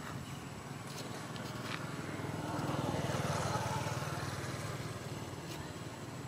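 A passing motor vehicle's engine, swelling to its loudest about halfway through and then fading as it goes by.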